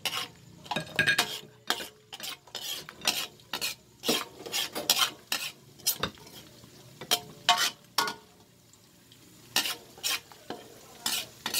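A utensil stirring and scraping garlic around a hot pan in irregular strokes over a light sizzle of garlic frying in oil and butter. The stirring pauses for a moment about eight seconds in.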